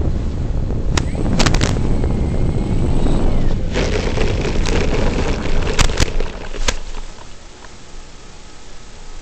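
Rushing noise over an FPV link's audio as a Carbon Cub S2 RC plane lands and rolls out on grass, with several sharp clicks. About seven seconds in it drops to a quieter steady hiss as the plane comes to rest.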